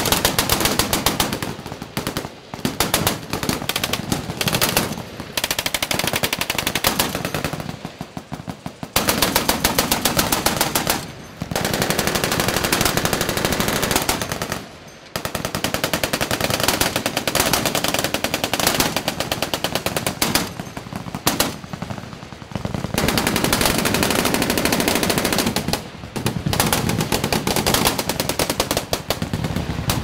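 M2HB Browning .50-calibre heavy machine gun firing long bursts of rapid automatic fire, broken by several short pauses.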